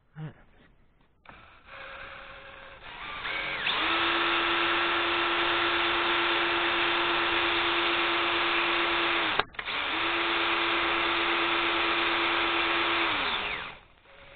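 Electric drill spinning a car distributor at speed to drive its points, firing a 12-volt ignition coil across two spark plugs in a live bench test. The motor whine builds up over the first few seconds and holds steady. It cuts out briefly about two-thirds of the way in, starts again, and winds down near the end.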